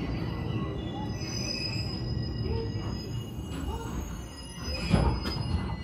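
Inside the motor car of a JR Kyushu 811-series electric train braking into a station. A low running rumble dies away, with a faint steady high-pitched squeal from the brakes and wheels. A sharp knock comes about five seconds in.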